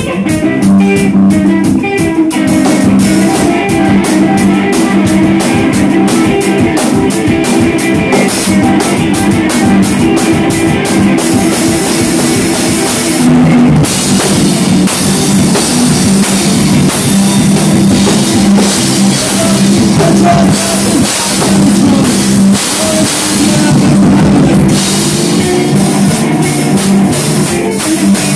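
Live rock music from an electric guitar and a drum kit playing loudly together, with rapid drum and cymbal strikes through the first part.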